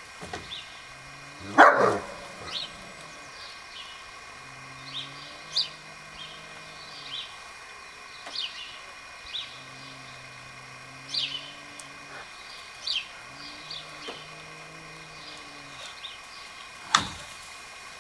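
A dog barks sharply about two seconds in and once more near the end, over small birds chirping every second or so and a steady high hum.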